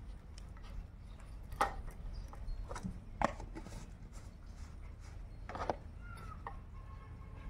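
Handling sounds of fishing bait being mixed by hand in a steel bowl: three sharp knocks or clicks, spaced about two seconds apart, over a low steady rumble. A faint bird call comes near the end.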